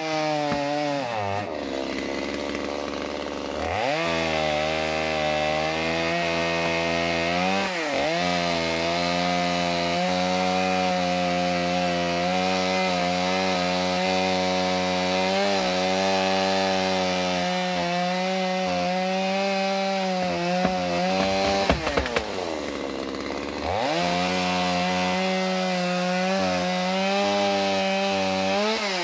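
Petrol chainsaw running at high revs while cutting through a large oak branch. Its engine note drops steeply and climbs back a few times, once near the start, once about a quarter of the way in and once for a couple of seconds about three-quarters through, and a few sharp knocks come just before that last dip.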